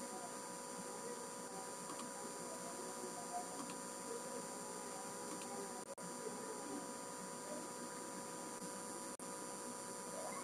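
Steady electrical hum of several fixed tones over a low hiss on an open webinar audio line, cutting out for an instant twice in the second half.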